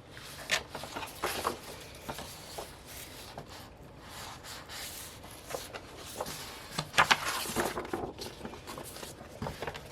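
Paper rustling and crinkling as a large folded calendar poster is handled and unfolded, with a few sharper crackles, the loudest about seven seconds in.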